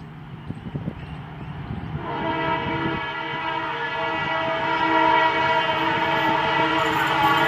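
Rumble and clatter of an approaching train. About two seconds in, the WDP4 diesel locomotive's horn starts a long, steady, multi-tone blast that grows louder as the train comes closer.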